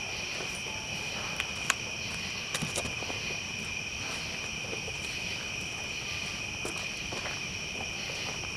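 Steady, high-pitched chorus of crickets, with a few sharp pops and crackles from a burning campfire, most of them in the first three seconds.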